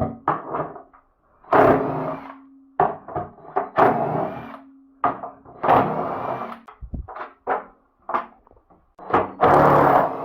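Irregular knocks, thuds and scraping as top-loading washing machine parts are handled, about a dozen strikes with longer scrapes between them.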